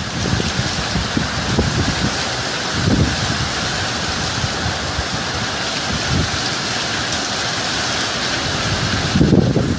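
Hurricane wind driving heavy rain: a steady rushing hiss of rain and wind, with gusts buffeting the microphone about three seconds in and again near the end.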